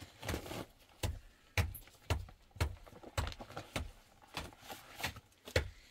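Repeated knocking, about two sharp strikes a second, each with a dull thud beneath it, in an even rhythm.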